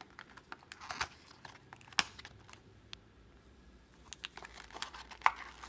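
Small cardboard product box being opened by hand: scattered light clicks, taps and crinkles of the packaging. The sharpest click comes about two seconds in, and another about five seconds in.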